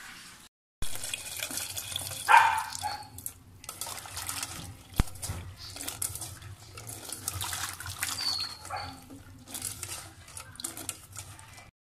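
Hands swishing and rubbing red chilies in a steel bowl of water, with irregular splashing and sloshing against the metal. A short, louder pitched sound stands out about two seconds in.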